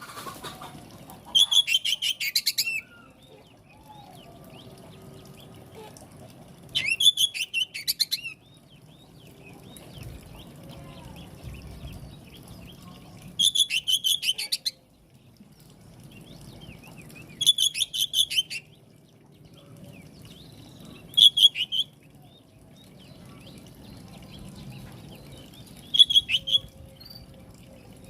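Oriental magpie-robin (kacer) calling in six short bursts of rapid, rattling repeated notes, spaced a few seconds apart, over a faint low hum.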